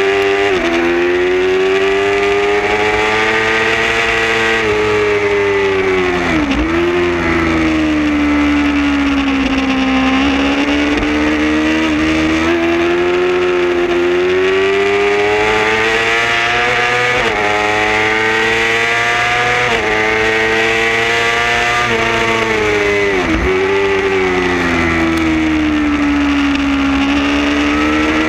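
Onboard sound of a racing sport motorcycle's engine held at high revs, its pitch rising and falling with the throttle through corners and gear changes. The pitch drops sharply and recovers twice, about a quarter of the way in and again near the end.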